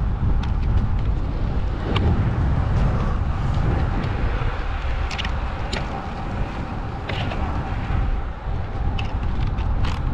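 Wind buffeting the microphone of a camera on a moving bicycle, a steady low rumble with road noise, and a few sharp clicks scattered through.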